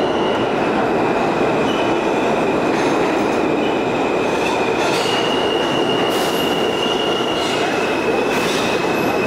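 New York City subway R train running through an underground station: a steady rumble of wheels on the rails with a thin, high wheel squeal that steps up in pitch about five seconds in, and a few clicks from the rail joints in the second half.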